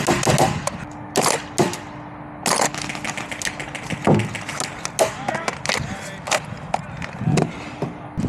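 Airsoft guns firing: irregular single shots and short bursts of sharp snaps, some loud and close, others further off.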